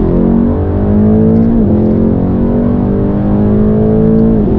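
Mercedes-AMG E63 S twin-turbo V8, remapped to stage 2+ with a new exhaust, accelerating hard, heard inside the cabin. The engine note climbs steadily and drops with a quick upshift about a second and a half in, then climbs again to a second upshift at the end.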